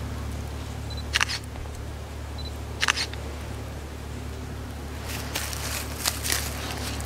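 Steady low rumble with a handful of short, sharp clicks: one about a second in, one near three seconds, and several more between five and six and a half seconds.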